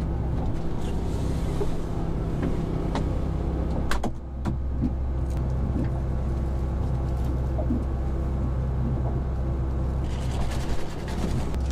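Air conditioner running with a steady low hum. A sharp click comes about four seconds in, after which the hum changes slightly, with a few small clicks and knocks around it.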